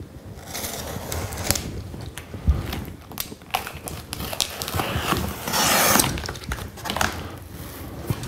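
Knife slitting the packing tape on a cardboard box, with scattered scrapes, clicks and knocks of hands on the cardboard and a longer rasp about two-thirds of the way in; the box flaps are pulled open near the end.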